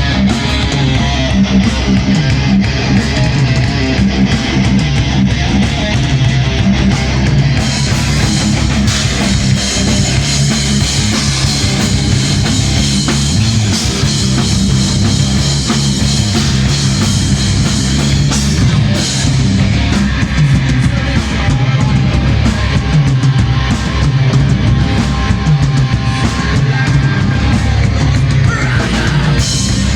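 Heavy metal band playing live: distorted electric guitars over a drum kit, loud and continuous, with the cymbals coming in brighter about seven or eight seconds in.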